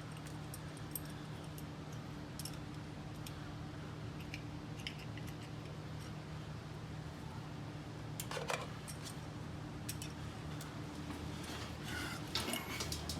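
Scattered light metallic clicks and clinks of hand tools and a bolt being handled while a valve cover bolt goes into a helicoil-repaired hole, with a steady low hum underneath. There is a louder clink about two-thirds of the way through and a quick run of clinks near the end.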